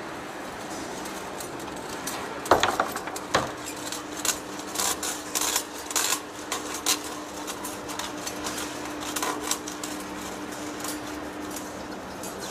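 Large lathe turning with a steady hum while its cutting tool peels curled steel chips off the workpiece. From a couple of seconds in until about ten seconds, the chips clink and snap against the tool post in a quick, irregular run of sharp metallic clicks, the loudest at the start.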